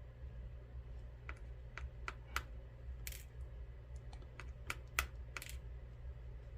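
Light, irregular clicks and taps of small metal lock parts as the Mul-T-Lock MT5+ plug is handled and its key pins are tipped out, over a steady low hum.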